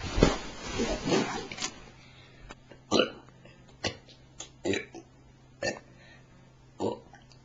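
A person burping: one long burp lasting about a second and a half at the start, then a string of about six short, separate bursts.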